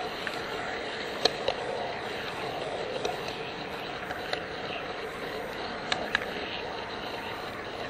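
HO-scale model train rolling along the track, heard from a camera riding on the train: a steady running noise of wheels and motor, with a few sharp clicks now and then.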